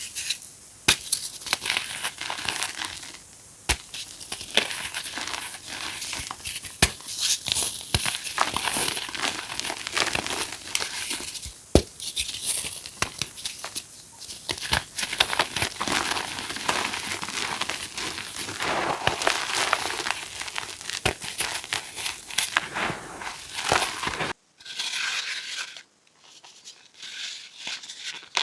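Reformed gym chalk being crushed, with dense crisp crunching and sharp cracks as the pressed blocks break and crumble. About 24 seconds in it cuts off abruptly, then softer, scattered crunches follow.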